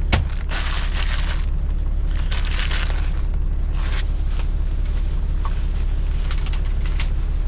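Steady low hum of an idling engine, with rustling and crinkling from things being handled in the cab: a sharp click near the start, then several short bursts of rustling and a few light ticks near the end.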